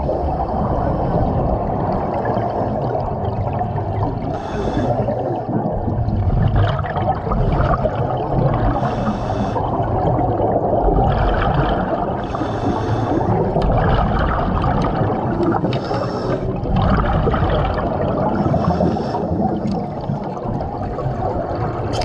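Underwater sound heard through a diver's helmet: a steady rush of water and air, with a hiss of exhaust bubbles about every three to four seconds.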